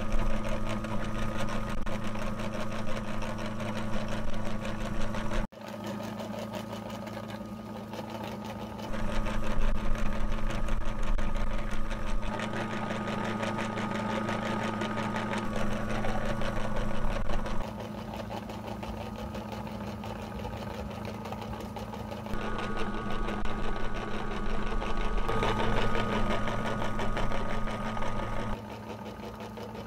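Meat grinder running with a steady mechanical hum as soft jelly and slime are forced through its plate. The level jumps up and down abruptly several times.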